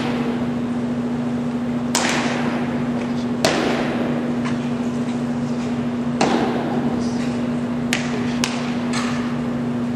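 Rifle drill by cadets: about five sharp single strikes of drill movements with arms, spaced irregularly and echoing around a large drill hall, over a steady low hum.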